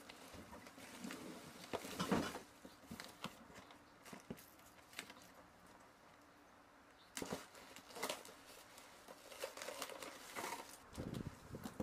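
Faint, scattered small clicks, taps and rustles of objects being handled, with a quieter stretch in the middle.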